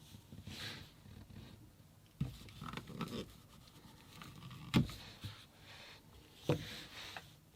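Handling noises: light rustling with a few sharp taps or clicks, the loudest about two, five and six and a half seconds in.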